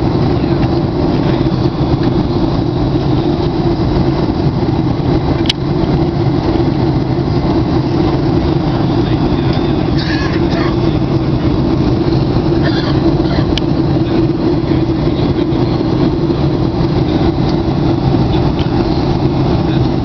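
Steady in-flight cabin noise of an airliner: an even drone of engines and rushing air with a strong low hum, unchanging throughout, and a couple of faint clicks.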